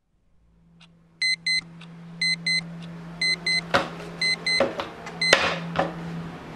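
Quartz alarm clock beeping in quick pairs about once a second, with a few knocks as a hand grabs and handles it. The beeping stops about five seconds in.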